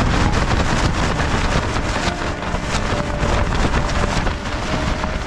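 Gale-force wind battering a tent, heard from inside: the loose fabric flaps and snaps in rapid cracks over a constant rush of wind, with gusts buffeting the microphone.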